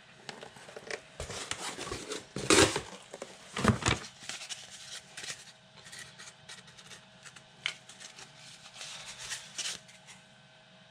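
A strip of cardboard scraping and rustling in short irregular strokes against the floor around freshly set resin anchor studs, scraping away the excess resin. The loudest scrapes come about two and a half and four seconds in, over a faint steady hum.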